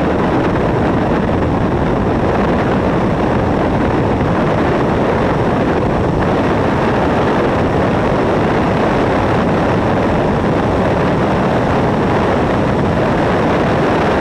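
Car driven at speed on a race circuit, heard through a camera microphone mounted outside on the front wing: a loud, steady rush of wind buffeting and road noise with no clear engine note.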